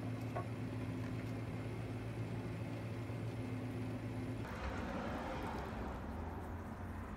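A steady low hum, then about halfway through water sprinkling from a plastic watering can's rose onto potting soil in a pot, an even splashing hiss.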